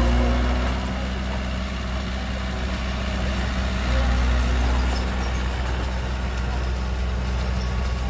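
Heavy diesel engine running steadily with a deep hum; its level eases off about a second in and picks up again around four seconds.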